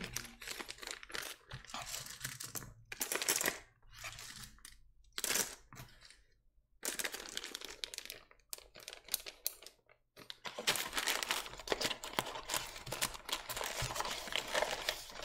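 Clear plastic bag of mechanical keyboard switches crinkling and rustling as it is handled, in irregular spurts with short pauses; from about seven seconds in the rustling becomes more continuous.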